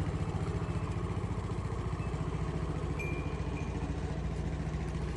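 An engine running steadily at a low, even pulse.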